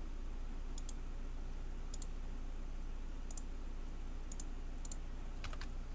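Computer mouse clicking, about seven single clicks roughly a second apart, over a steady low electrical hum and hiss.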